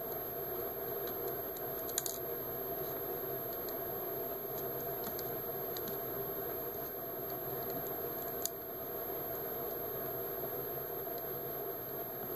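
Steady background hum with a few light clicks and taps from small laptop parts being handled, the sharpest about two seconds in and another near eight and a half seconds.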